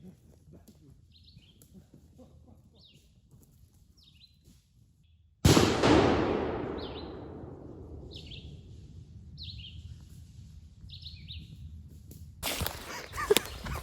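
A single shotgun blast about five seconds in, fired at a wild turkey gobbler, its echo rolling away over about three seconds. Small birds chirp about once a second before and after the shot, and near the end there is rustling and snapping of people moving quickly through brush and grass.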